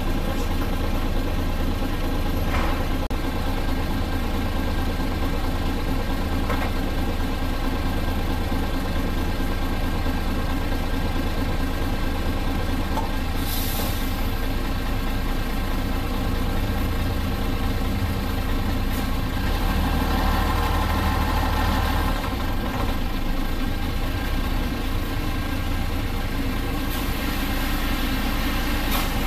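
Diesel engine of a Hino RC monocoque bus running steadily, with a short hiss about halfway through and the low rumble growing louder for a couple of seconds about two-thirds of the way in.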